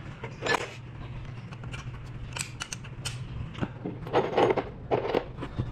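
Small metal engine parts clicking and clinking as they are handled and fitted during cylinder-head reassembly. There are several sharp clicks, then a couple of longer clattery bursts in the second half, over a steady low hum.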